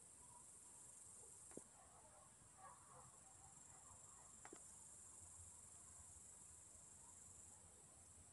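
Near silence with a faint, steady, high-pitched trill of crickets, and a few faint clicks.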